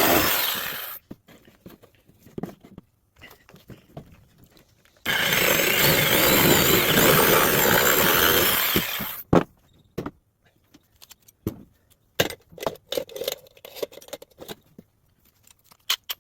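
A woodworking power tool running, cutting off about a second in, then running again for about four seconds from about five seconds in. Between and after the runs come scattered clicks and knocks of wood and tools being handled.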